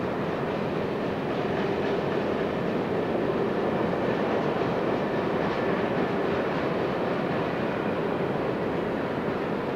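Freight train cars rolling past: steady wheel-on-rail noise that holds even throughout.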